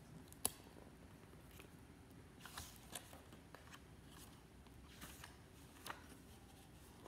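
Hardcover picture book being opened and its pages handled: a few faint paper rustles and clicks, the sharpest about half a second in.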